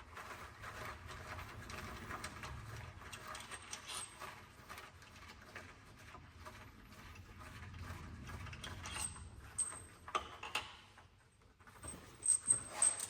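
Metal tools and engine parts clicking and clinking during a bottom-end teardown: a run of fast mechanical clicks for most of the time, then a few separate sharp, ringing metal clinks near the end.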